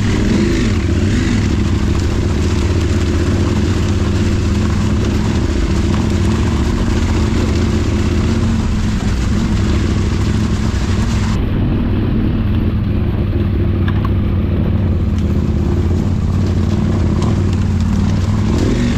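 Off-road motorcycle engine running at a steady pace while riding, with a steady hiss of noise over it.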